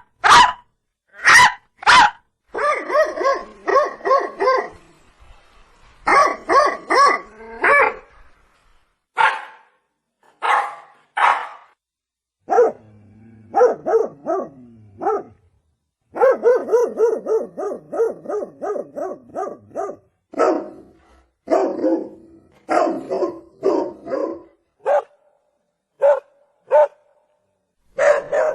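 Dog barking repeatedly, in groups of barks with short pauses between them, including some quick runs of several barks in a row.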